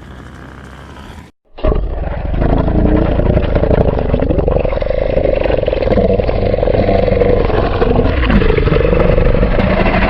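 A monster's drawn-out, rasping roar as a sound effect: it starts suddenly after a brief faint hiss and a short silence, then holds for about nine seconds, its pitch wavering up and down.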